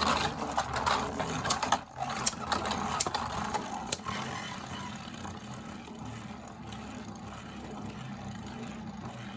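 Beyblade Burst spinning tops whirring in a plastic stadium. Sharp clacks of the tops striking each other come over the first few seconds, then a steadier whir fades slowly as they lose spin.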